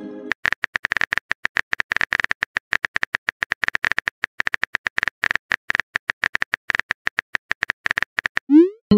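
Phone on-screen keyboard clicks as a text message is typed out, a rapid irregular run of taps several a second. Near the end comes a short rising swoosh: the message-sent sound.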